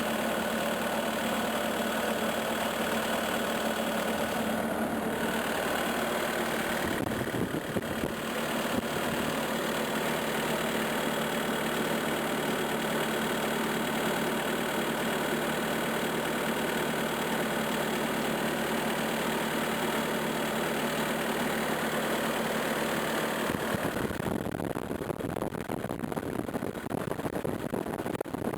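Skid steer engine idling steadily; near the end the steady engine note gives way to a rougher, noisier sound.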